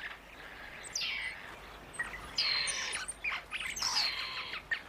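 Dwarf mongoose alarm calls: an excited exchange of shrill, harsh calls. There is a downward-sweeping call about a second in, then two longer rasping calls with short sharp chirps between them. The calls are the troop's warning at a predator, a monitor lizard.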